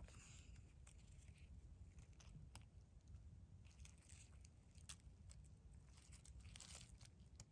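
Near silence: faint scattered crackles and rustles of dry leaf litter as a hand handles a freshly picked mushroom, over a low steady rumble.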